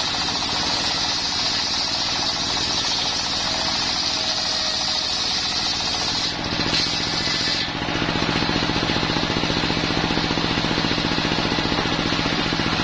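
Homemade table circular saw, driven by a single-cylinder diesel engine, ripping a coconut-wood beam with a loud high hiss over the engine's steady chugging. The cut ends about two-thirds of the way through, and the blade then spins free with only the engine running evenly.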